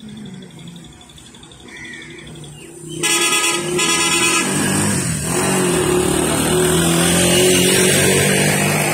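A vehicle horn sounds about three seconds in, for over a second, over road traffic; then a tractor's engine running steadily grows loud as the tractor hauls a heavily loaded trolley past.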